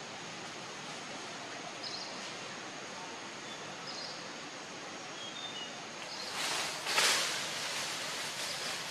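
Tree-canopy ambience: a steady hiss with a faint high tone, a few short high chirps, and a louder rustle of leaves and branches about six seconds in, lasting a second or so.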